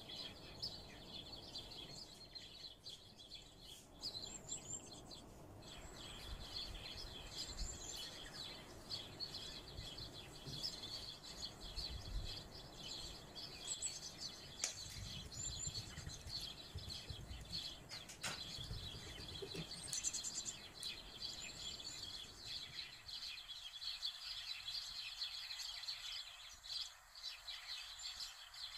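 Many small birds chirping continuously in the background, faint. Now and then a soft knock, like a spoon against a glass mixing bowl as batter is stirred.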